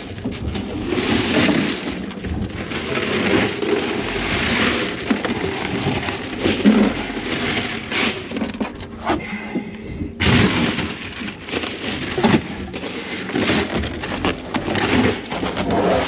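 Wind buffeting the microphone and choppy water slapping against a small fishing boat's hull: a loud rushing noise with irregular splashes and knocks, easing briefly about nine seconds in.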